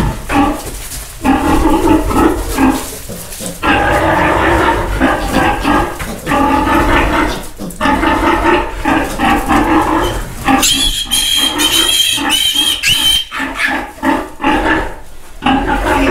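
Pigs squealing loudly in long bouts with short breaks: piglets being caught and handled, with the upset sow calling as well. A shriller, higher squeal rises over the rest for a few seconds past the middle.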